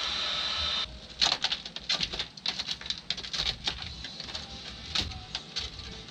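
A heat gun's blower runs steadily and cuts off just under a second in. It is followed by irregular crackling and scraping clicks as the T-top panel is worked by hand in a cardboard box.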